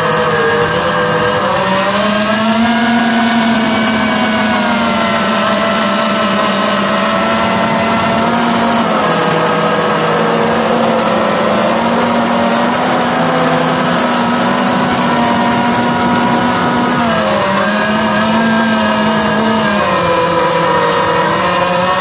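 FPV quadcopter's brushless motors and propellers whining steadily, several tones drifting up and down in pitch together as the throttle changes, with a dip about 17 seconds in.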